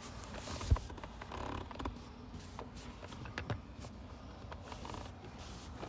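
Small plastic car interior trim parts being handled and fitted, with faint scattered clicks and one sharper knock about a second in.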